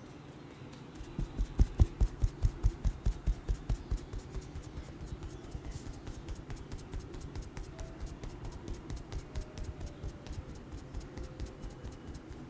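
Percussive hand massage: hands striking a person's body in a fast, even rhythm of about five strokes a second. The strokes start about a second in, are loudest for the first few seconds, then go on lighter and slightly quicker.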